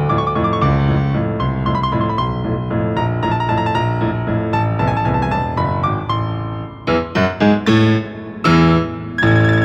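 Piano music playing a melody over chords, breaking into a run of short, sharp chords near the end.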